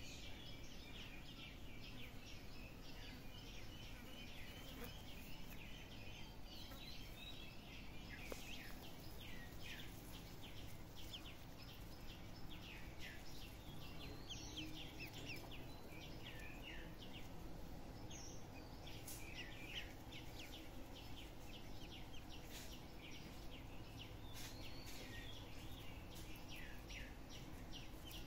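Ducklings peeping: many short, high cheeps in quick runs throughout, over a steady faint outdoor background noise.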